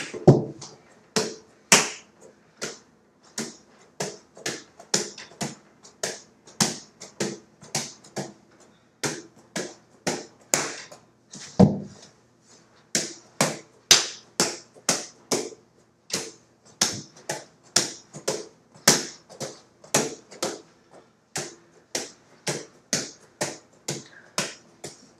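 Hands smacking a 5-pound soft weighted grip ball as it is tossed and caught, a sharp slap about twice a second, with a heavier thud at the start and another about halfway through.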